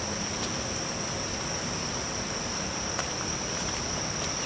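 Steady high-pitched drone of insects chirring without a break, over an even background hiss, with a few faint ticks.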